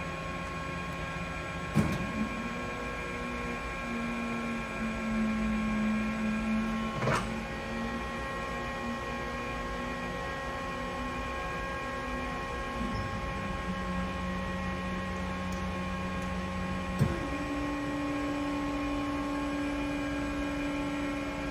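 Mori Seiki NL3000 CNC lathe running at low speed during a stepped speed test: a steady machine hum with a held whine that shifts pitch several times. Sharp clicks come at about 2, 7 and 17 seconds in, each around a change in pitch.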